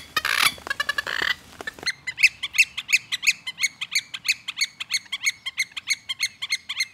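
Birds calling: a dense burst of chattering, then about two seconds in a rapid, even run of short, sharp chirps, about six a second.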